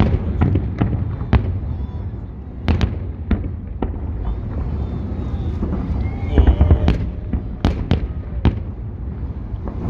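Fireworks salute: shells bursting in irregular quick succession, sharp bangs over a continuous low rumble, with a dense flurry of bursts about six seconds in. Crowd voices are heard faintly between the bangs.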